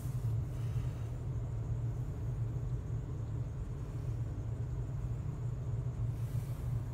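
Ford 6.8 L Triton V10 engine of a 2003 E-450 motorhome idling steadily, heard from inside the cab as a low, even hum.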